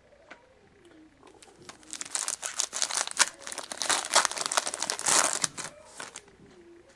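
Wrapper of a 2011-12 SPx hockey card pack being torn open and crinkled: a dense crackle that starts about two seconds in and lasts about four seconds.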